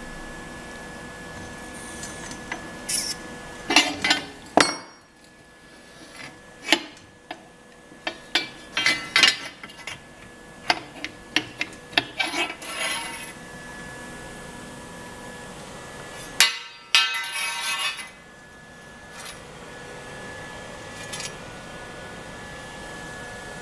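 Irregular metallic clinks and knocks of steel parts and tools being handled during assembly of a steel-tube bender frame, in scattered clusters, over a steady faint electrical hum.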